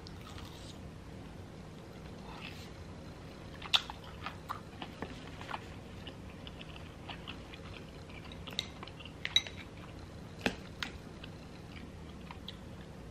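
A person chewing food close to the microphone, with soft mouth sounds and a few sharp little clicks scattered through, the sharpest about four seconds in and again near ten and a half seconds.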